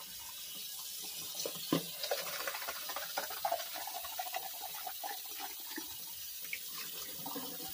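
Water running steadily, a hiss with light splashing.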